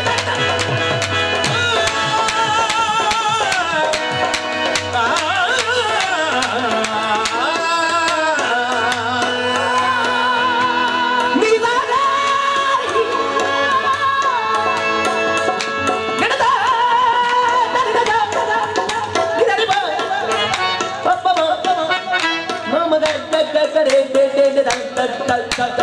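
Qawwali: harmoniums playing under a lead singer's wavering sung lines, with tabla strokes and the chorus's hand clapping keeping the beat.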